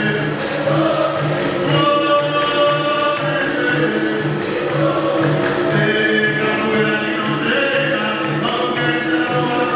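Capoeira roda music in the São Bento Grande rhythm: a large group chorus singing over berimbaus, an atabaque drum and a pandeiro. The drum keeps an even beat of about two strokes a second under the voices.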